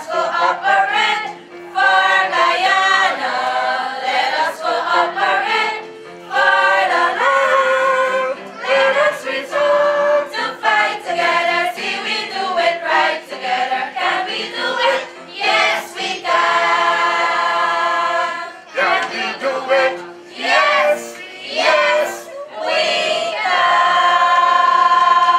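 A choir of schoolgirls singing to electronic keyboard accompaniment, ending on a long held note.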